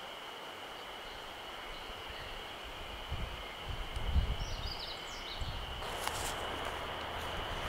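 Outdoor ambience with a steady high drone and a few short bird chirps. An uneven low rumble builds from about three seconds in.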